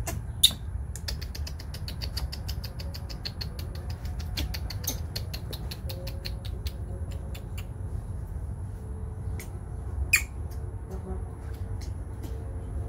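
Baby macaque giving short, high squeaks and chirps, a quick run of them in the first six seconds and a sharper, louder one about ten seconds in, over a steady low rumble.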